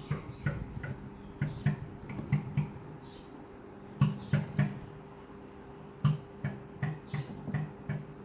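Keys in the highest octave of a Casio AP-470 digital piano struck one at a time, about two to three a second, first in a rising run and then in short groups: each gives a soft key thud and a short, thin, very high tone instead of a full piano note. This is the glitched high-octave sound of a main-board fault. A faint steady hum runs underneath.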